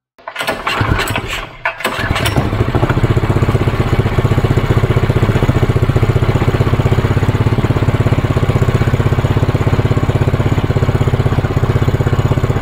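Predator 212cc single-cylinder OHV engine starting up, sputtering for about two seconds before catching and settling into a steady, even run on its newly replaced carburetor, the sign that the carburetor was the cause of its rough running.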